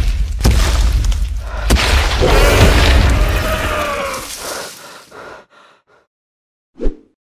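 A loud, deep rumbling sound effect with a few gliding tones over it, fading out over the first five seconds or so. A single short thump comes near the end.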